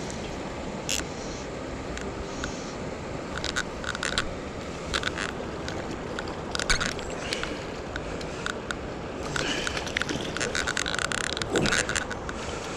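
Steady rush of river water flowing over a shallow bed, with scattered short clicks and knocks that grow busier in the last few seconds.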